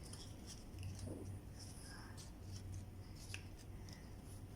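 Faint rustling and crinkling of a sheet of paper being folded by hand into a paper boat, with small ticks of the paper, over a low steady hum.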